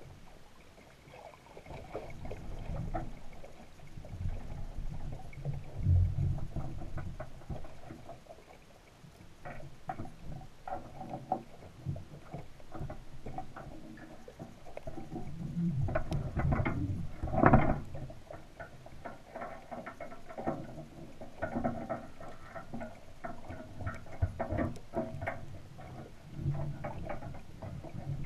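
Underwater sound picked up by a submerged camera: low, uneven rumbling of water moving around the housing, with many scattered clicks and crackles and one louder knock a little past the middle.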